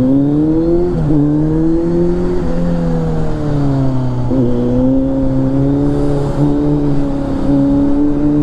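Kawasaki Z900's inline-four engine accelerating: rising pitch, broken by upshifts about one, two and a half and four and a half seconds in. It then runs steadily at cruising speed, rising slightly again near the end.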